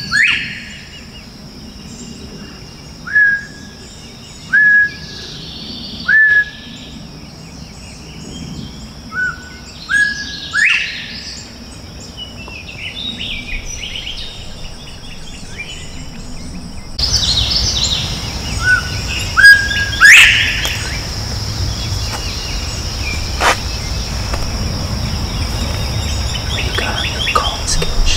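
Northern bobwhite whistling its two-note 'bob-white' call over and over, a short low note stepping up to a higher one every couple of seconds, the loudest calls ending in a quick rising sweep. A steady high insect buzz runs underneath.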